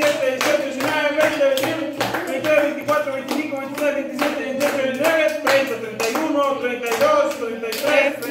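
Group of adults and children singing a birthday song together, clapping along in a steady beat of about two claps a second.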